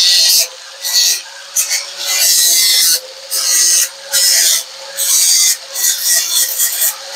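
Hand abrasive strokes rasping back and forth to smooth a homemade welded metal shifter knob, about one stroke a second. A faint steady hum runs underneath.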